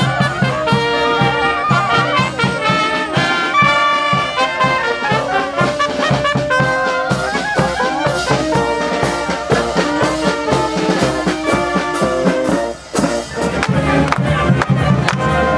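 Marching band playing: trumpets and saxophone carrying a tune over a steady beat of snare and bass drum.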